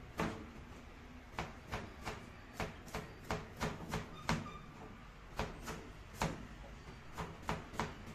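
Chef's knife chopping carrot on a plastic cutting board: a series of sharp knocks about three a second, with a short pause around the middle.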